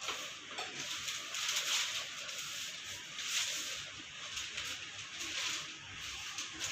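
Packaging rustling and crinkling as it is handled, in uneven swells.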